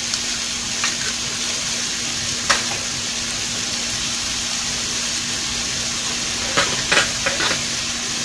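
Diced tomato, onion and chiles frying in hot oil in a pan, a steady sizzling hiss with a few sharp clicks and pops, several of them together near the end.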